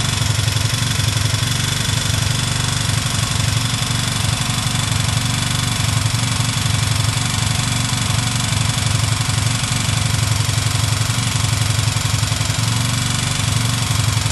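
Chinese motorcycle's 162FMJ single-cylinder bottom-cam (pushrod) engine idling steadily with a knock inside the engine whose cause the owner doesn't know.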